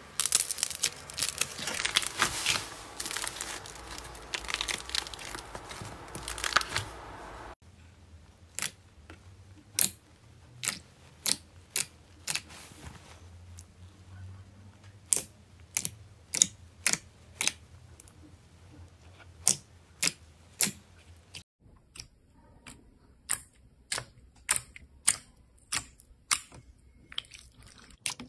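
Hands working clay and slime. First a dense run of crackling and crunching as soft pastel clay is squeezed. After a cut about seven and a half seconds in come sharp separate clicking pops, about one a second, as fingers press into glossy slime, and slightly faster ones near the end.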